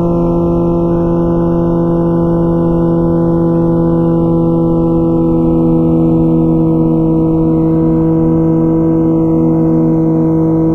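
2004 Honda CBR1000RR Fireblade's inline-four engine running through a Jardine titanium exhaust, cruising at a steady speed, its note holding one constant pitch.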